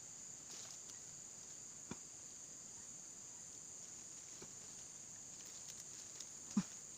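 Steady, high-pitched chirring of crickets and other insects, with a few faint clicks and one sharper knock near the end.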